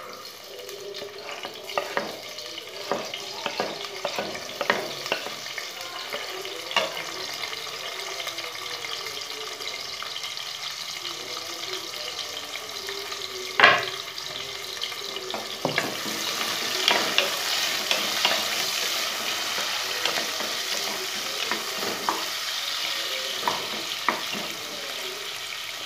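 Chopped onions and green chillies sizzling in hot oil in a pressure cooker, stirred with a wooden spatula that knocks against the pot now and then. One sharp knock comes just past halfway, and the sizzle grows louder soon after.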